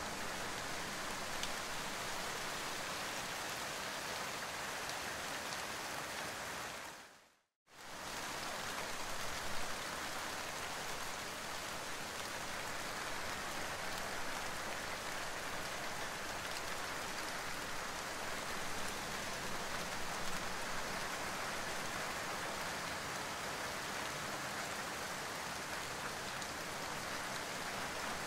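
Steady rain falling, an even hiss of drops. About seven seconds in it fades out to silence for a moment, then comes straight back.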